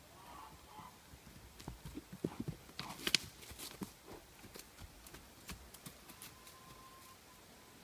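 A young horse's hooves thudding and scuffing on dirt as it trots and bucks, spooked: an irregular run of hoofbeats, loudest about three seconds in, then thinning out.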